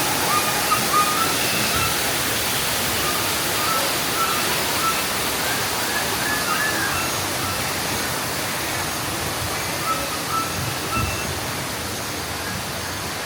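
Steady rush of falling water from a waterfall, with faint short high chirps scattered through it.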